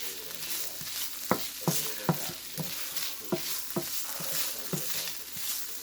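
Food sizzling in a frying pan while a utensil is stirred through it, knocking against the pan about two to three times a second over a steady hiss.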